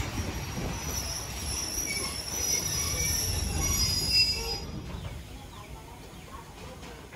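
Passenger train's wheels squealing in thin high tones over a low rumble of the running gear as the train slows almost to a stop; the squeal dies away a little over halfway through and the rumble grows quieter.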